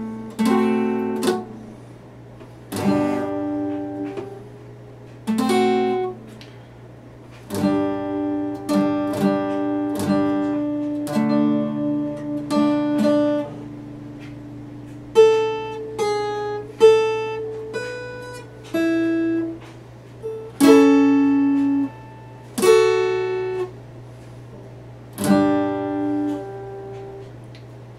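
Epiphone acoustic guitar played solo at a slow pace: chords plucked and left to ring out, with gaps between them, and a short run of single picked notes about halfway through.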